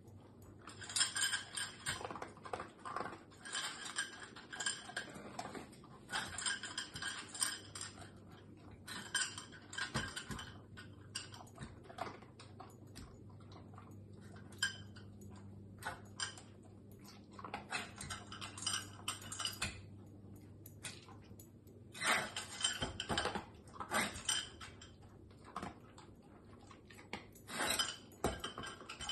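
A dog nosing through a metal muffin-tin food puzzle on a tile floor, the tin clinking and rattling in irregular bouts as he pushes aside the toys covering the cups to get at the food.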